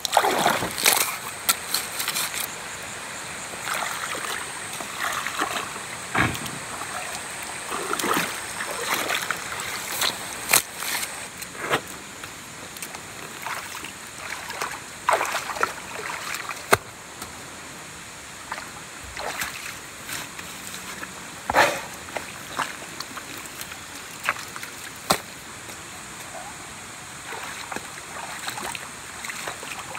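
Water splashing and sloshing in irregular strokes over a steady wash of noise, a splash every second or two. The loudest splashes come near the start and about two-thirds of the way through.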